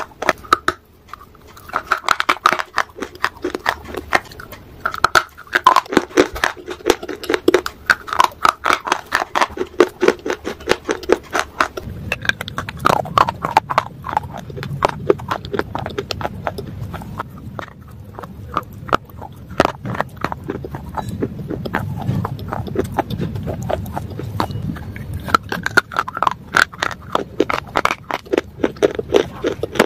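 Close-up crunching and chewing of grey baked clay bars: dense, sharp crackles from a full mouth. A low hum comes in partway through.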